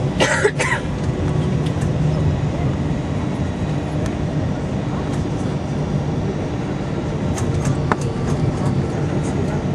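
Steady rumble of an Airbus A321 jet airliner's engines and airframe, with a brief louder rattle at the start.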